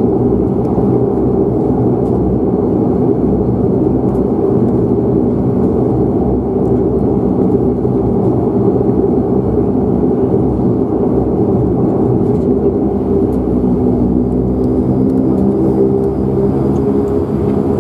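De Havilland Canada Dash 8 Q400's Pratt & Whitney PW150A turboprop engine and six-bladed propeller running on the ground, heard from inside the cabin: a steady drone made of several low hums.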